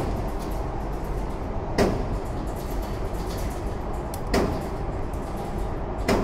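Three gunshots on an indoor range, roughly two seconds apart, each a sharp crack with a short echo, over a steady low rumble.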